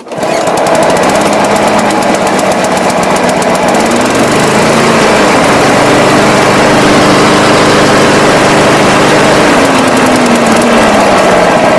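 Snapper Ninja Hi Vac walk-behind lawn mower engine catching on the pull-cord with the choke on, then running steadily and loudly. Its speed rises about four seconds in and drops back down near the end.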